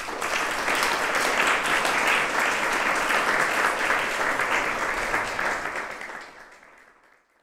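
Audience applauding: dense, even clapping that fades away over the last second or so.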